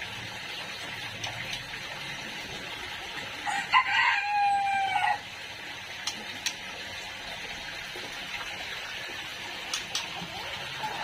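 A rooster crowing once, about four seconds in: a single held call lasting about a second and a half, over a steady background hiss.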